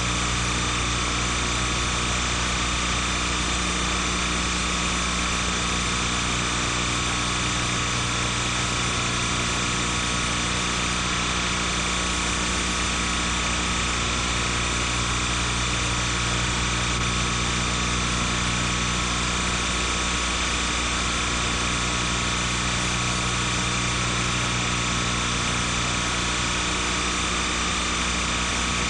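Steady, unchanging electrical hum and hiss with a buzzy mix of fixed tones, the noise floor on the soundtrack of silent film footage; no sound from the filmed scene.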